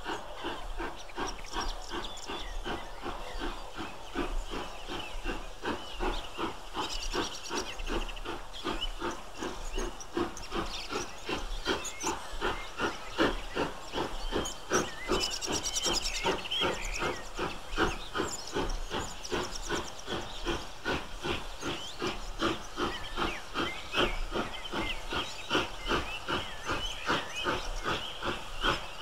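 LNER B1 class 4-6-0 steam locomotive No. 61341 working a train slowly up a gradient: its exhaust beats evenly at about three beats a second, with steam hiss, loudest around the middle.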